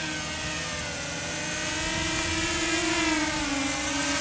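Walkera F210 racing quadcopter's brushless motors and propellers whining in flight, the pitch dipping about a second in, climbing, then dropping again near the end as the throttle changes.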